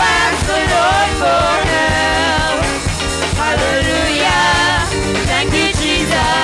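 Live gospel praise and worship music: women's voices singing into microphones over a band with a drum kit keeping a steady beat.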